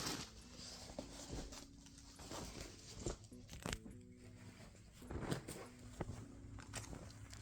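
Scattered light clicks, knocks and rustles of belongings being handled and put away, over faint background music.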